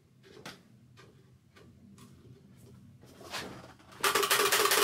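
A few faint plastic clicks as the sound card is pushed into the Turbospoke bicycle exhaust and locked. Near the end the wheel is set spinning: the 250 card rattles against the spokes in a loud, rapid buzz, like a small motorbike engine.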